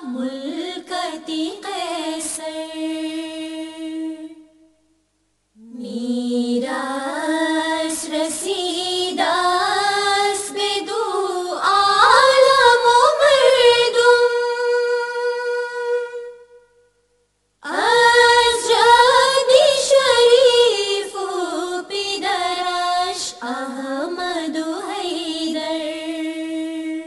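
Farsi ginan, an Ismaili devotional hymn, sung by a single high voice with no accompaniment. The voice moves in long phrases with winding pitch, broken by two short silences, about five seconds in and about seventeen seconds in.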